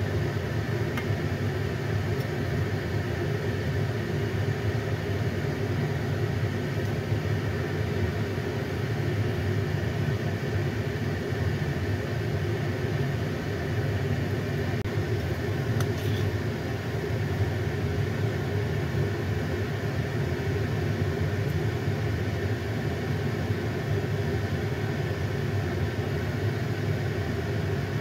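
A steady low background rumble, like a motor or fan running, with a few faint clicks.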